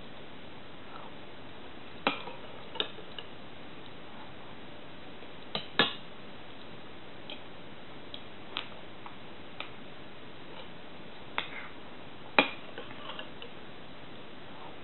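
Eating with a metal spoon from a porcelain bowl: scattered short sharp clicks of the spoon against the bowl, a dozen or so irregularly spaced, the loudest about six and twelve seconds in, over a steady faint hiss.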